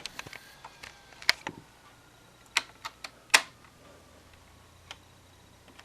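Keys being pressed on a laptop keyboard: a run of irregular clicks and taps, the sharpest about one and a third, two and a half and three and a third seconds in.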